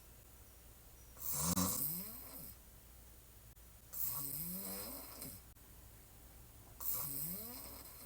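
A woman lying on her back snoring hard: three snores about three seconds apart, each rising and then falling in pitch over a breathy hiss. The first is the loudest.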